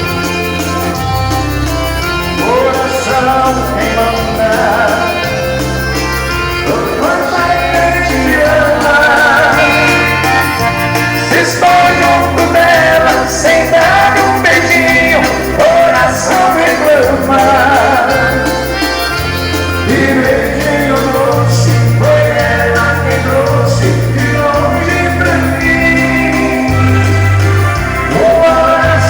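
Live band music: a waltz, with a steady bass line under a wavering melody.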